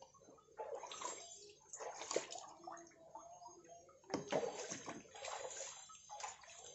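Water splashing and sloshing in several short, irregular bursts as a submersible pond pump is rinsed by hand in water.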